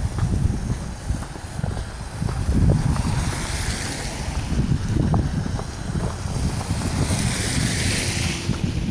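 Wind buffeting the microphone in uneven gusts, with a rushing hiss that swells near the end.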